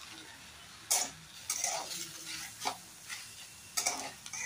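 Washed moong dal being fried in a pan, a spatula scraping and stirring it about five times over a faint sizzle.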